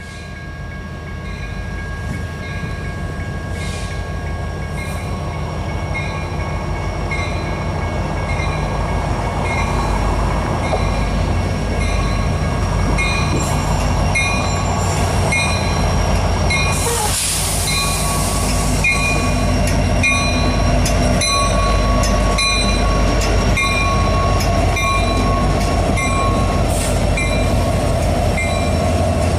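Union Pacific EMD SD70ACe diesel-electric locomotive, with its 16-cylinder two-stroke 710 engine, approaching under power while pulling a train of auto rack cars. Its low rumble grows steadily louder throughout. Short high tones repeat about every 0.7 s over the second half, and there is a brief hissing burst around the middle.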